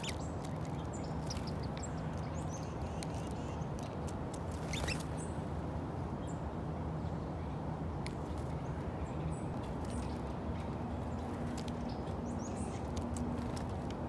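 Small songbirds at a feeder: scattered short high chirps and clicks, one louder about five seconds in, over a steady background hiss with a faint low hum.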